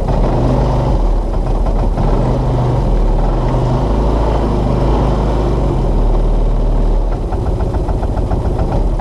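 Linhai Big Horn 400 UTV engine running while the machine is driven, its pitch shifting with the throttle, with a rapid, even ticking coming in near the end.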